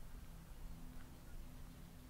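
Faint outdoor ambience: low wind rumble under a steady low hum, with one faint short bird chirp about halfway through.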